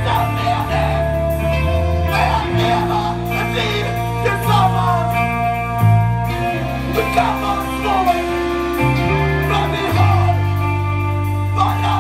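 A live rock band plays: electric guitars with sustained notes, bass guitar and drums with cymbals, and a male voice singing in several phrases over them.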